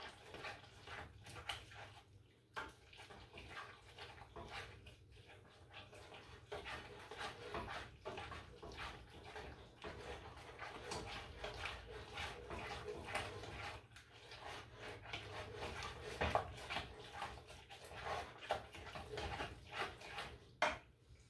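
A spoon stirring and scraping around a pot of chili mac: a long run of irregular clicks and scrapes against the pot.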